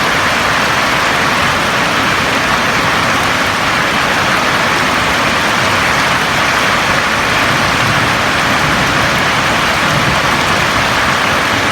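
Steady rain falling on a roof, an even hiss with no change in strength.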